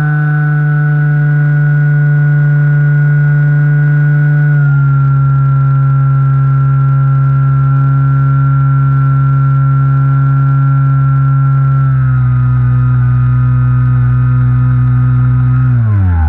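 Skywalker 1680 model plane's motor and propeller, heard from a camera on board: a steady whine that steps slightly lower in pitch twice, then falls steeply near the end as the throttle comes back.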